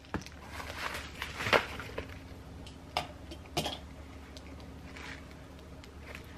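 Plastic food containers and packaging handled and set down on a table: a few light knocks and clinks with some crinkling of packaging, the loudest knock about a second and a half in.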